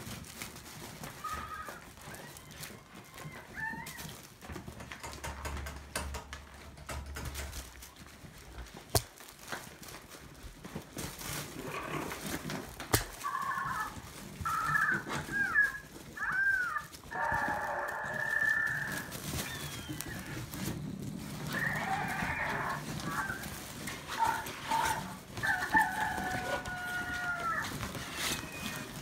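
Maltese puppies yipping and squealing in rough play, short high calls that bend in pitch, coming in bunches through the second half, with a couple of sharp knocks from paws and toys.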